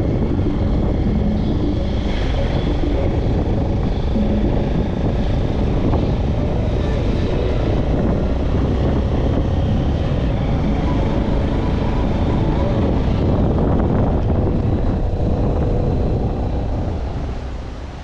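Steady low rumble of a car on the move, engine and road noise, which fades away near the end.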